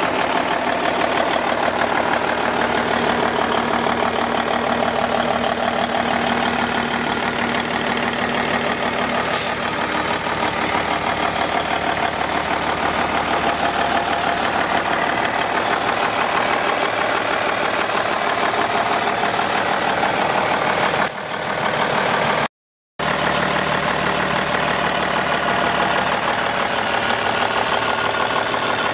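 Cummins N14 Plus six-cylinder diesel engine of a semi truck running steadily at idle with a knocking diesel clatter. The sound cuts out completely for a moment about three-quarters of the way in.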